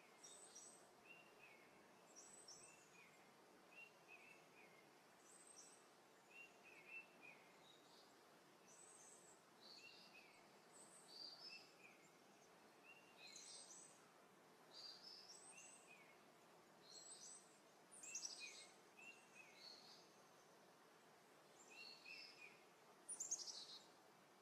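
Faint birdsong over a low outdoor hiss: small birds chirping and singing short repeated phrases every second or two, with one louder call near the end.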